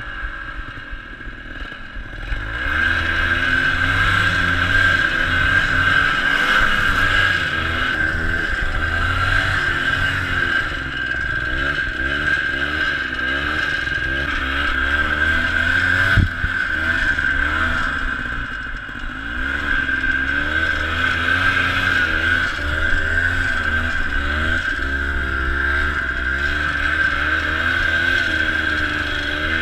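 Ski-Doo Tundra 250 LT snowmobile's two-stroke engine running under load through deep powder, its revs rising and falling over and over. It is eased off at first and revs back up about two seconds in. A single sharp knock sounds about halfway through.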